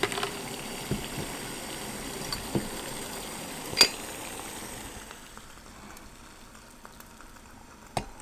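Water at a full boil in a hammered aluminium saucepan over an alcohol stove, a steady bubbling hiss, with a few light metallic clinks and one sharper clink about four seconds in. The boiling sound falls away about five seconds in as the pot is lifted off the flame.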